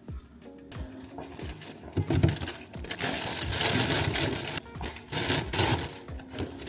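Plastic grocery bags and packaging crinkling and rustling as groceries are unpacked, loud and irregular from about two seconds in.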